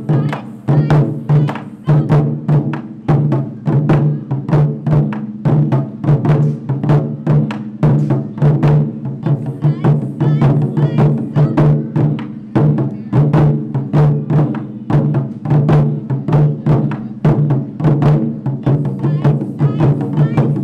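Japanese taiko ensemble of four barrel-bodied drums (nagado-daiko) struck with wooden bachi sticks, playing a steady, fast rhythm of sharp strikes, about four to five a second, each with a deep ringing boom.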